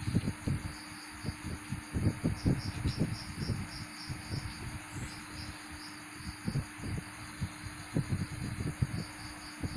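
Irregular soft thumps and rustles of hands working satin ribbon close to the microphone, over a steady low hum. From about two seconds in, a cricket chirps in the background, about three short high chirps a second.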